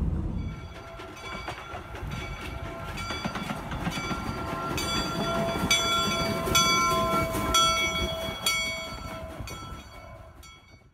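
Bell of the replica Central Pacific No. 119 steam locomotive ringing, about one strike a second, over a low rumble, fading out near the end.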